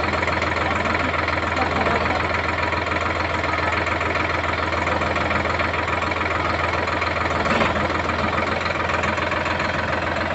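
Sonalika Tiger 55 hp tractor's diesel engine idling steadily, with a brief faint click about seven seconds in.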